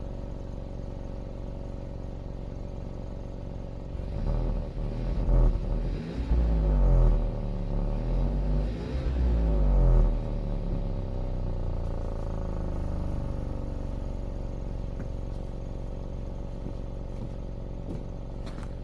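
Volkswagen Touran 1.4 TSI turbocharged four-cylinder petrol engine on its factory exhaust. It idles, is revved up and down several times between about four and ten seconds in, then drops back to a steady idle.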